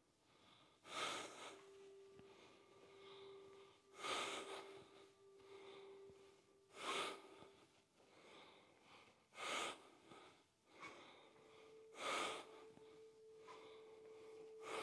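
A woman breathing, five short strong breaths about two and a half seconds apart, in time with a slow swinging yoga balance (leg and arm pendulum swings).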